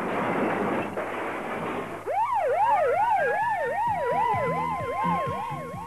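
A rushing noise for about two seconds, then emergency-vehicle sirens start: one in a fast up-and-down warble of about three cycles a second, another rising in pitch and levelling off into a steady wail.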